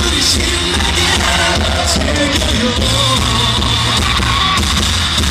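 Live K-pop song with group vocals over a steady pulsing beat, played through a concert sound system and recorded from the audience.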